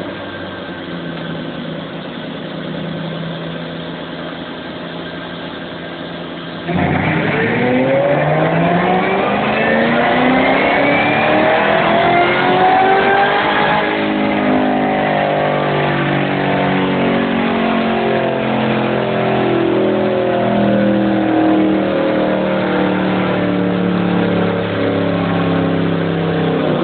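2011 Shelby GT500's supercharged 5.4-litre V8 running on a chassis dyno: steady at low revs at first, then about seven seconds in the throttle opens and the engine note climbs steadily for about seven seconds in a full-throttle dyno pull. It then stays loud at a high, roughly steady pitch.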